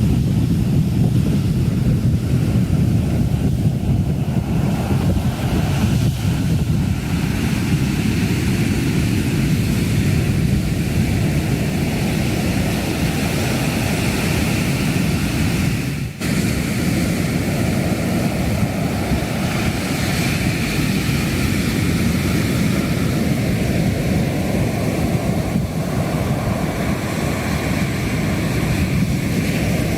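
Atlantic surf breaking and rushing in a steady, heavy wash, with wind rumbling on the microphone. The sound briefly dips about halfway through.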